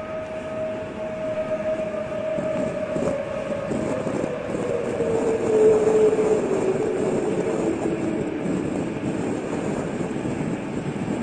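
A steady, deep rumbling drone with a humming tone that slowly falls in pitch, swelling to its loudest a little past the middle.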